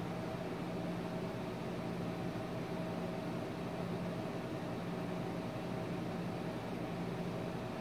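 Steady room hum and hiss with a constant low tone, unchanging throughout.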